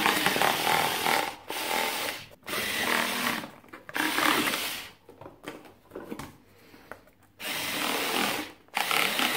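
Parkside PAS 4 B3 cordless screwdriver with its cutting attachment, the small rotary blade running in short bursts of about a second as it slices through cardboard. The bursts stop and start several times, with a quieter stretch about halfway through.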